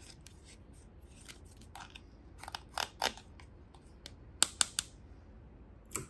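Small objects being handled, giving sharp clicks and snaps. A few faint taps come first, then three loud clicks about two and a half seconds in, a quick run of three more at about four and a half seconds, and one last click near the end.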